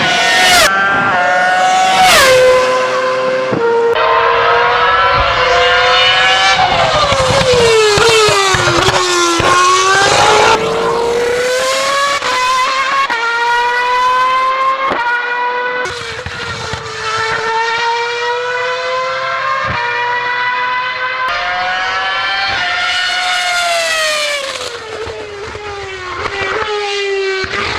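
BMW Sauber F1.06 Formula One car's 2.4-litre V8 at racing revs, its high note climbing through the gears with a sudden drop at each upshift. Twice, about a third of the way in and again near the end, the pitch falls through several downshifts under braking before climbing again.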